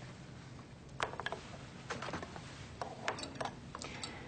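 A series of light, irregular clicks and taps, about ten of them, from small hard objects being handled.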